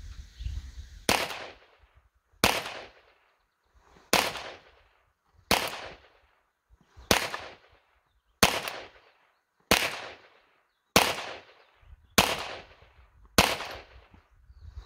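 Ruger Mark III Hunter .22 LR pistol fired ten times in slow, steady succession, about one shot every second and a half. Each shot is a sharp crack followed by a short fading echo.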